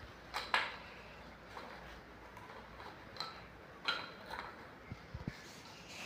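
Faint, irregular clicks and scrapes of a Teflon-taped plastic pipe nipple being screwed by hand into a threaded wall fitting.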